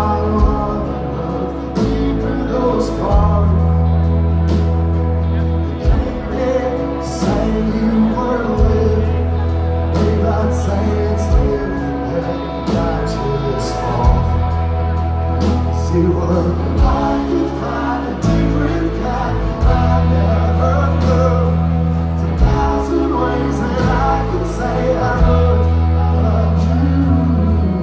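Live band music: a bass line holding notes that change every couple of seconds under drums and other instruments, with some singing.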